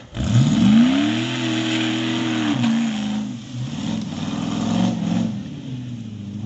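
Off-road buggy's engine revved hard about a quarter second in, the pitch climbing steeply and holding high for a couple of seconds. It then drops and revs up again in shorter surges as the buggy drives forward.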